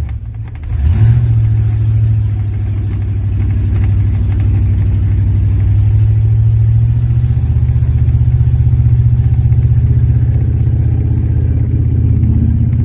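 1993 Ford F-150 pickup's engine pulling steadily under load through deep floodwater, its throttle picking up about a second in.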